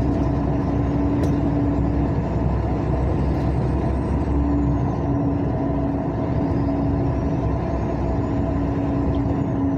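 Motor vehicle driving along a highway: a steady engine drone and road noise, with a low hum that fades out for a couple of seconds in the middle and then returns.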